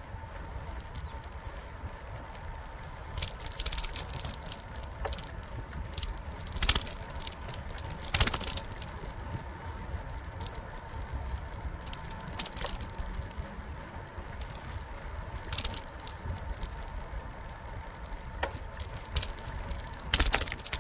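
Bicycle rolling along an asphalt path, a steady low rumble of tyres and wind with a faint steady whine, and sharp rattles of the bike and handlebar-mounted camera jolting over bumps and cracks about six times.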